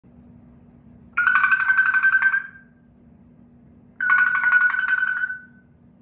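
African grey parrot mimicking a ringing phone: two rings, each a rapid trill on one steady pitch, lasting about a second and a half and fading away at the end.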